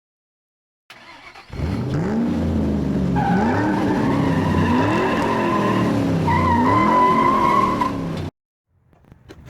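Car engine revving in repeated rising sweeps, with a steady high tire squeal over it from about three seconds in. It cuts off abruptly near the end.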